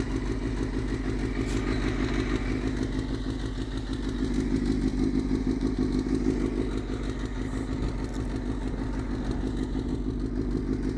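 Suzuki GSX-R600 sport bike's inline-four engine running at low, steady revs while riding off-road, growing a little louder midway.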